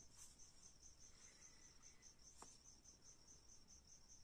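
A cricket chirping faintly, a steady run of rapid, evenly spaced high chirps, with one faint tick about two and a half seconds in.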